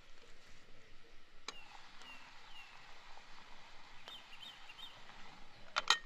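Birds calling over a faint steady background: a few short falling chirps around two seconds in and a quick repeated trill about four seconds in, with a single sharp pop about a second and a half in. Near the end comes a louder cluster of sharp metallic clinks as the lid of a cast iron kettle is taken by its knob.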